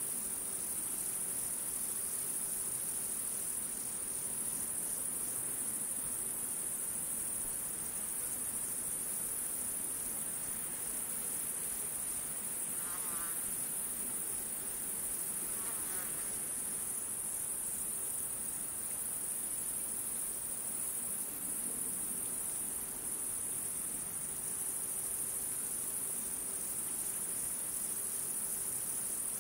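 Steady, unbroken high-pitched trilling of an insect chorus, such as crickets.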